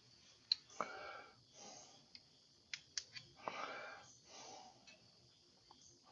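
A few faint, sharp clicks of hand tools and parts being handled, three of them standing out, with softer rustling between.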